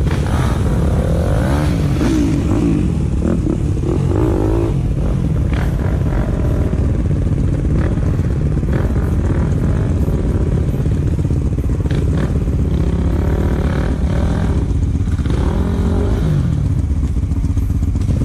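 Dirt bike engine revving in repeated bursts, the pitch climbing and falling again and again over a steady low rumble, as the bike fights its way up a steep grassy slope.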